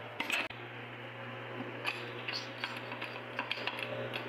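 Small metal parts of a Sanden car AC compressor clicking and clinking as they are handled, a few scattered taps over a steady low hum.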